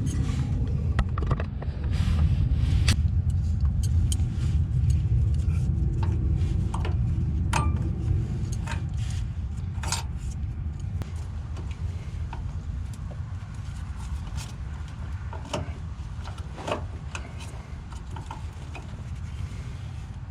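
Scattered clicks and light metallic taps of a fuel line quick-connect fitting being worked loose from a fuel filter, over a steady low rumble that eases off in the second half.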